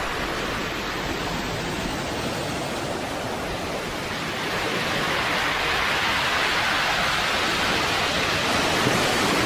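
Surf from a heavy sea swell breaking on the shore: a continuous rush of waves that grows louder about halfway through.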